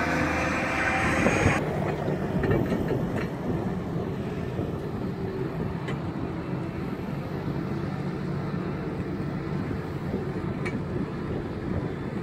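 Self-propelled sugar beet harvester running at a beet clamp: a steady heavy diesel engine hum with rattling and a few sharp knocks from the machinery. About a second and a half in the sound changes abruptly from a louder, hissier din to a quieter, steadier hum.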